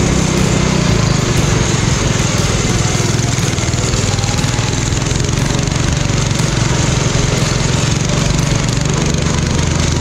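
Modified riding lawn mower (mud mower) engine running steadily under way.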